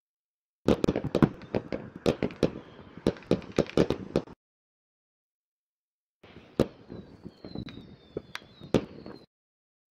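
Fireworks and firecrackers going off in rapid, irregular pops and bangs, in two spells of about three seconds each with a silent gap of about two seconds between them. A thin high whistle runs through the second spell.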